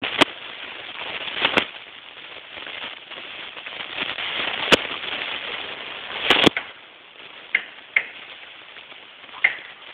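Rustling and scuffling of a dog rolling on its back in grass, with a few sharp clicks and knocks, and three short high squeaks in the last few seconds.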